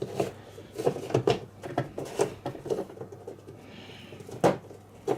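Plastic filter of a Bosch compact dishwasher being worked back into its sump: a run of short clicks and knocks, with one louder clunk about four and a half seconds in.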